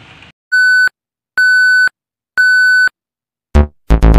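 Channel logo intro sound effect: three identical electronic beeps about a second apart, then a quick run of five loud, bass-heavy synthesized musical hits.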